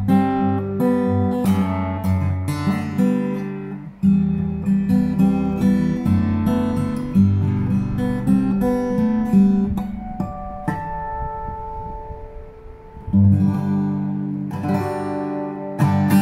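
Aria W-20D dreadnought acoustic guitar with a spruce top, played fingerstyle with strummed chords over strong bass notes. The playing thins to a few ringing notes from about ten and a half seconds in, and full strums come back about two and a half seconds later.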